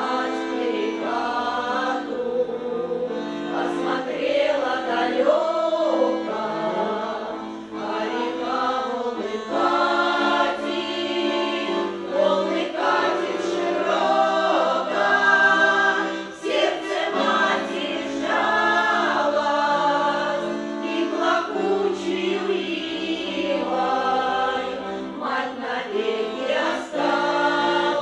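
A women's folk choir singing a Russian folk song together, accompanied by an accordion holding sustained chords underneath.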